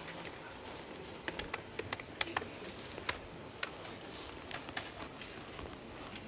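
Typing on a laptop keyboard: irregular, scattered key clicks over faint office room tone.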